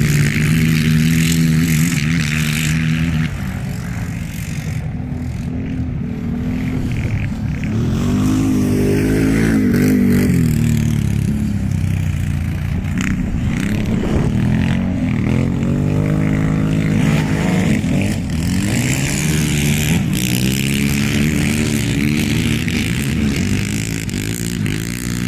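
Quad bike (ATV) engine racing, its pitch rising and falling over and over as the throttle is opened and eased off.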